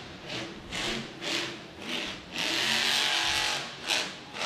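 Monster truck engine revving in short throttle bursts about twice a second, then held for a longer pull of over a second about two and a half seconds in, as the truck drives across dirt.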